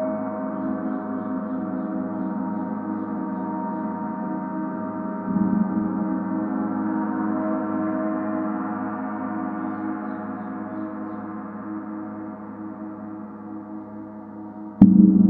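Planet gong tuned to Mercury ringing in a long sustain, played softly again about five seconds in and then slowly fading, and struck hard once just before the end.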